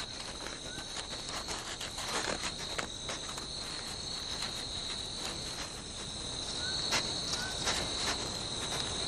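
Steady night chorus of crickets: a constant shrill trill with fainter higher lines. Scattered crackling and scratching clicks run through it as a pangolin claws and tears into a tree ant nest.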